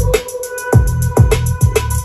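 Loud electronic dance track with a heavy kick that drops in pitch, about two beats a second, over steady synth tones. It is played through PA bass and top speakers driven by a CKS CP10000Q four-channel class-D amplifier during a bass test. The low end drops out briefly about half a second in, then the kick returns.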